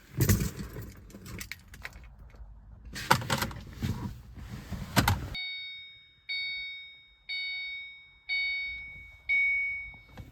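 Handling clatter with several sharp knocks, then a car's warning chime dinging five times, about once a second, each ding fading away.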